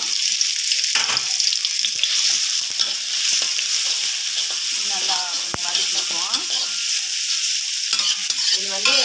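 Sliced onion and ginger sizzling in hot oil in a metal kadai, with a steady high hiss. A metal spatula stirs them, scraping and knocking against the pan a couple of times.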